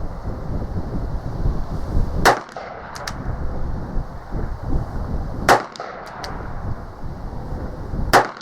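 Three shots from an Uberti 1875 Schofield single-action revolver in .45 Long Colt, about three seconds apart, each followed by a couple of faint clicks.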